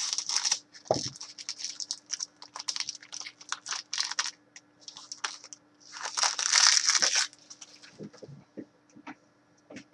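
Trading-card pack wrapping crinkling and tearing as a foil card pack is torn open, with the loudest run of crinkling about six to seven seconds in.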